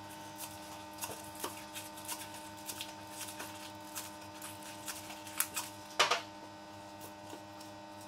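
Kitchen knife chopping spring onion on a wooden cutting board: irregular taps of the blade on the board, with a louder knock about six seconds in, over a steady low hum.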